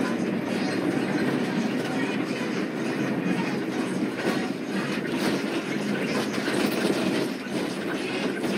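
Steady rumble of a moving road vehicle heard from inside its cabin: engine and tyre noise, heaviest in the low-mid range, with faint rattles.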